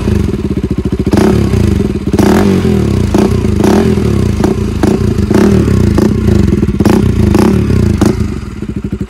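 KTM Duke 200's single-cylinder engine revved again and again in quick throttle blips through a duplicate Akrapovic slip-on exhaust with its dB killer fitted, then dropping back toward idle near the end.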